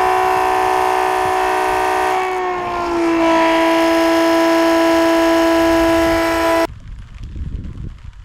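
Small electric water transfer pump running with a steady high whine. The pitch drops a little about two and a half seconds in, and the sound cuts off suddenly near the end.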